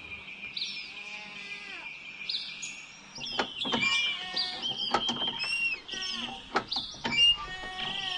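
Birds chirping and twittering, with a bleating call about a second in that falls in pitch.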